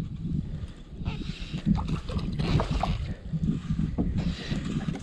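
Wind rumbling on the microphone, with light knocks and water sounds around a kayak.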